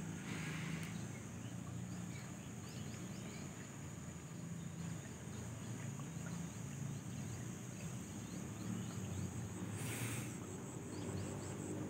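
Morning ambience over a rice paddy: a steady high insect trill, with faint short chirps and a low steady hum underneath. A brief hiss comes about ten seconds in.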